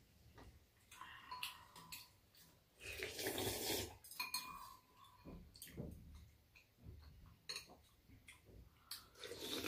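Metal spoons clicking and scraping against ceramic soup bowls as two people eat, with a louder stretch of slurping soup from a spoon about three seconds in.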